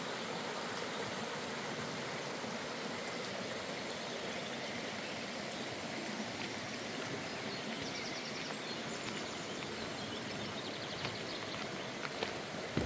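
Waterfall and stream water rushing steadily, with a few faint high-pitched trills in the second half and a couple of small sharp ticks near the end.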